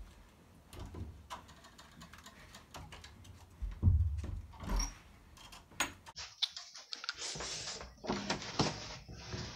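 Interior door being handled: its handle turned and the door opened, with a louder thud about four seconds in, amid scattered small clicks, knocks and shuffling movement.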